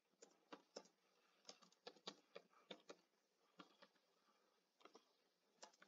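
Faint, irregular clicking of computer keyboard keys as a short phrase is typed: about fifteen keystrokes, some in quick pairs, with brief pauses between.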